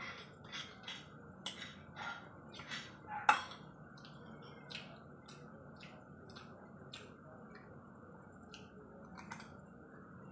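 Eating noodles with a fork and spoon: a string of short, quiet clicks and taps of cutlery on a plate and bowl, mixed with chewing. The clicks come thickly in the first few seconds, the loudest about three seconds in, then thin out.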